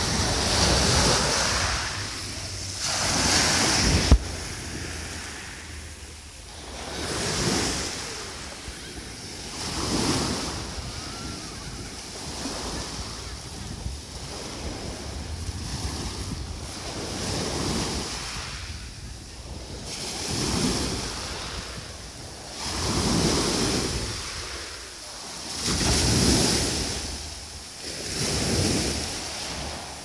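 Small waves breaking and washing up on a pebble beach, each surge swelling and falling away every two to three seconds, with wind buffeting the microphone. A single sharp click about four seconds in.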